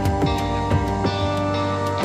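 Background music: held chords over a steady beat of about two beats a second.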